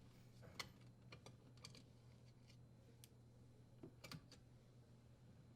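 Near silence: a faint low hum with a few scattered light clicks, from a screw being unthreaded and the dishwasher's electrical cover being removed.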